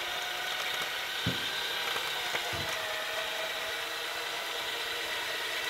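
Warn 8,000 lb electric winch running steadily under load, its motor and gear train whining as it reels in steel cable and pulls the compact tractor along. The whine sags slightly in pitch near the middle, and there are two short low knocks, about one and two and a half seconds in.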